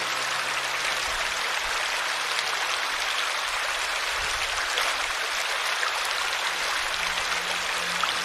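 Steady rush of flowing water from a stream, a hissing noise with no breaks. Near the end a soft, low sustained music tone comes back in beneath it.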